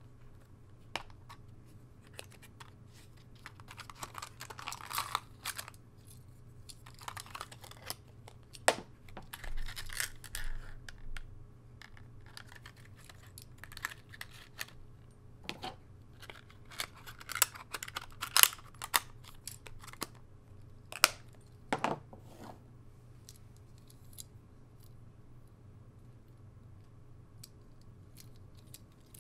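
Hands opening and handling a clear plastic clamshell box: patches of rustling and scraping plastic with sharp clicks and snaps, loudest about a third and two-thirds of the way through. After that only faint small clicks as the miniature plastic toy pistol is handled.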